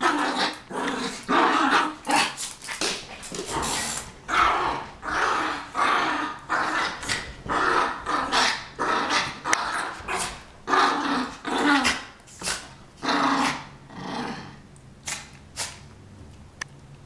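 Two small poodles play-fighting, growling and giving short barks in quick succession. The noise dies down to a few faint clicks in the last few seconds.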